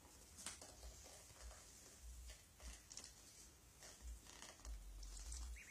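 Near silence with faint, scattered soft taps and rustles of ducklings pecking at a hand and shuffling on a plastic tarp, and a faint short peep just before the end.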